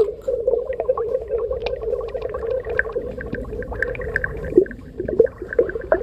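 Underwater sound: a steady low hum with bubbling and many scattered short clicks, the hum fading out after about four and a half seconds.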